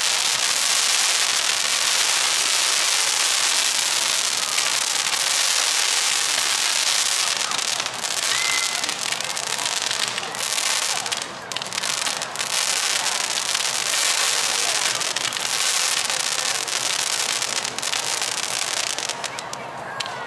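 A Roman candle barrage firework shooting a rapid stream of stars, heard as a dense continuous crackle and hiss of overlapping shots. It dies down near the end.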